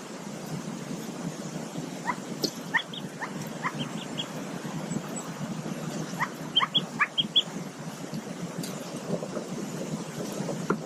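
Newly hatched mallard ducklings peeping from under the brooding hen: scattered short, high, downward-sliding peeps, with a quick run of them about two-thirds of the way through, over a steady low background noise.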